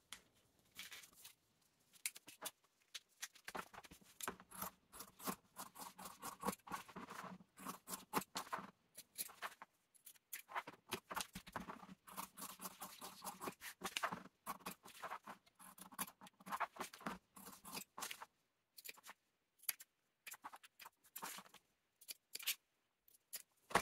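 Fabric scissors cutting cotton fabric around a pinned paper pattern: a long, irregular run of short snips and blade clicks, faint.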